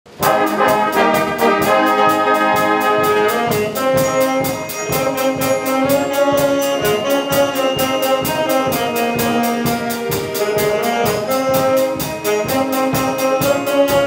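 Primary-school wind band playing a tune together, with saxophones, trumpets and tuba holding chords and moving through a melody.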